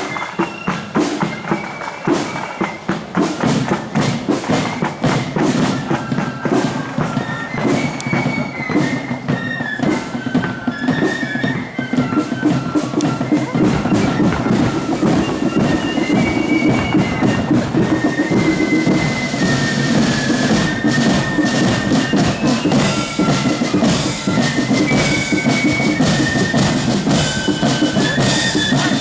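Marching flute band, high flutes playing a tune over snare and bass drums. It grows louder about halfway through.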